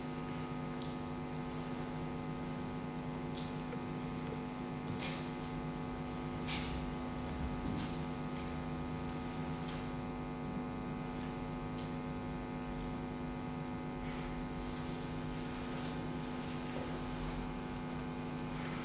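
Steady electrical mains hum, several even tones held without change, with faint ticks every couple of seconds.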